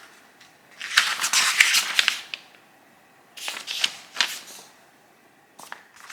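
Packaging rustling and crinkling as a boxed fan heater is unpacked: two bursts of about a second each, then a few light clicks near the end.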